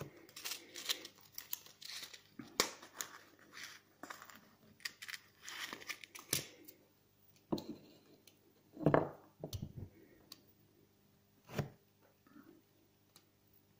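Close hand-handling of small fishing tackle while tying on a hook: crinkling rustles and quick light clicks, dense for the first half, then a few separate louder rustles.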